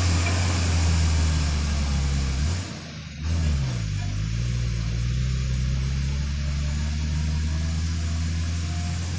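Loaded dump truck's diesel engine running under a steady low drone. About two and a half seconds in, the engine note drops away briefly, then picks back up with a rising pitch and settles into a steady run.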